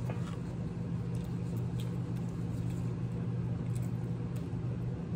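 Steady low hum, with faint scattered clicks and smacks of chewing food.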